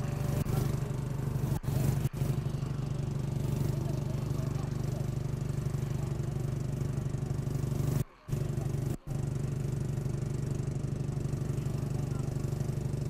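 Dauphin helicopter hovering and moving off low, its rotor beating fast and evenly over a steady low drone. The sound drops out for a split second a few times, about one and a half and two seconds in and again around eight and nine seconds.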